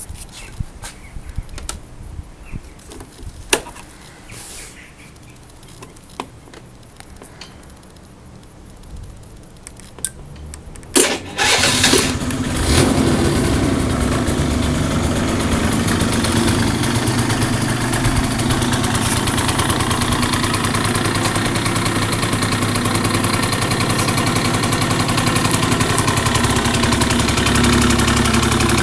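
Benelli 49x scooter's 50cc two-stroke engine. A few faint clicks first, then about eleven seconds in it is started and settles into a steady idle.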